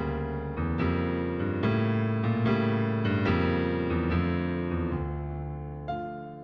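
Background piano music: a slow, gentle run of chords and melody notes that fades near the end, with a new chord struck just before it closes.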